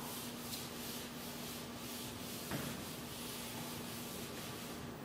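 Board duster rubbing across a chalkboard in repeated back-and-forth strokes, erasing chalk writing; faint, over a low steady hum, with a small knock about two and a half seconds in.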